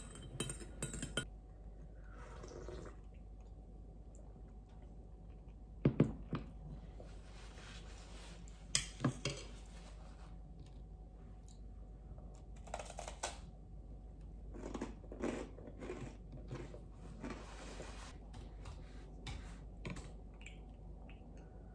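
A metal spoon clinking against a ceramic cup as tea is stirred at the start, then a few sharp knocks of tableware set down on the table, with soft rustling and small clicks as a paper napkin is handled.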